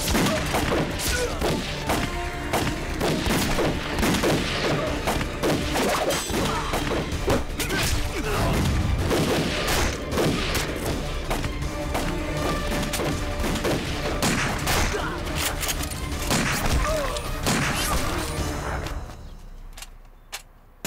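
Battle-scene gunfire: rapid rifle shots and impacts, with a music score underneath. It fades out near the end, leaving one sharp knock just before it stops.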